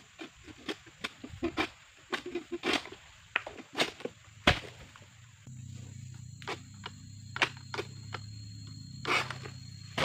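An egrek, a long-poled oil palm harvesting sickle, cuts and knocks among palm fronds in a string of sharp cracks and snaps with rustling between them. About halfway through, a steady low hum comes in underneath.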